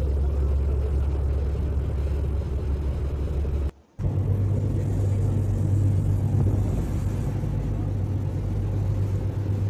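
Boat engine running at a steady speed, a low even drone with wind and water noise over it. About four seconds in, the sound drops out briefly and comes back as a slightly higher-pitched drone.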